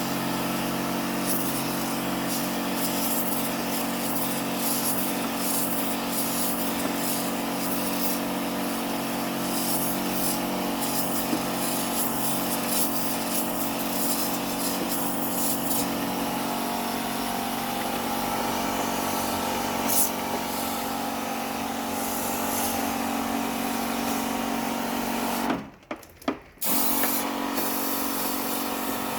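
Small electric sprayer pump running steadily with a hissing spray, as used to wash and rinse an air-conditioner's coil. The sound drops out briefly near the end.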